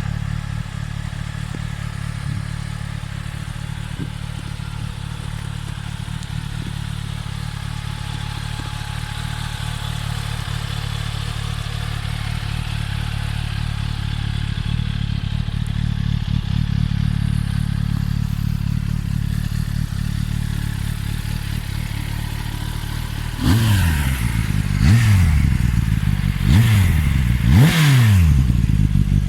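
2024 Kawasaki ZX-10R's inline-four engine idling steadily through its stock exhaust, then revved in four quick throttle blips near the end, each rising and falling back to idle.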